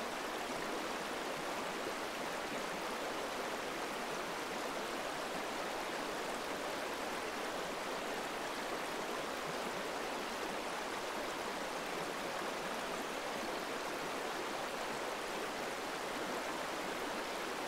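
Steady rush of a flowing stream, an even hiss of running water with no breaks.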